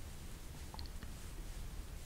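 Quiet room tone: a steady faint low hum and hiss, with a couple of tiny clicks a little under a second in.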